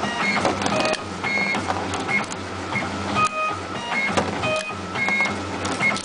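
WPM-MAX2-70 heavy-duty wire stripping machine running through its cycle, about once a second. A steady motor hum carries short whining notes at fixed pitches as the rollers feed the cable, with sharp clicks as the blades cut and strip thick copper cable.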